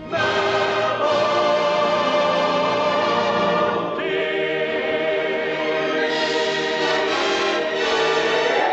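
An orchestra and a choir performing a full, sustained chorus of film-musical music, with the chords shifting about a second in, again near the middle and about two seconds later.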